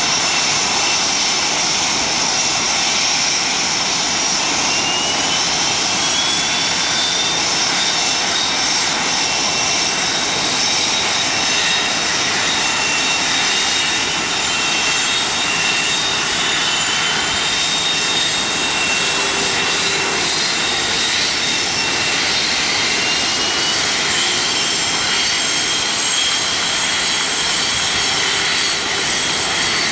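Twin General Electric F404 turbofan engines of Blue Angels F/A-18 Hornets running on the ground, a steady loud jet whine. Several high whines rise slowly in pitch one after another as the engines spool up.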